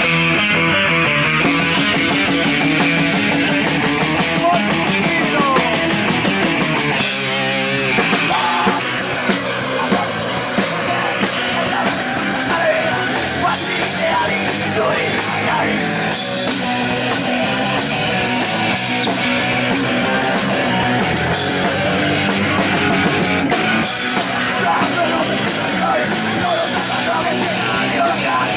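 Punk rock band playing live, loud: electric guitar and drum kit in an instrumental passage.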